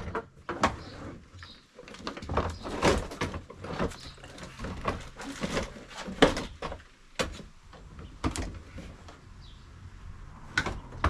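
Hard plastic parts of a Keter storage box knocking and clicking as a replacement hinge is worked into place by hand: a string of irregular knocks and clatters, the sharpest about six, seven and eight seconds in.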